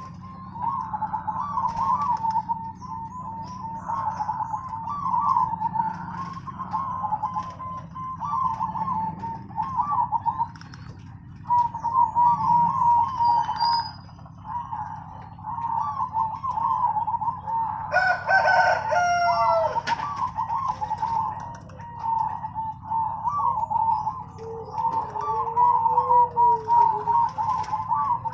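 Zebra doves (perkutut) cooing without pause: many short, rhythmic coo phrases overlapping at much the same pitch. About eighteen seconds in, a louder call with a falling pitch cuts through for about two seconds, and near the end a lower, drawn-out coo rises and falls.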